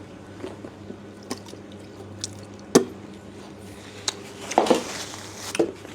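Wet chewing and mouth sounds of a person eating, with scattered sharp clicks and a short noisy burst near the end.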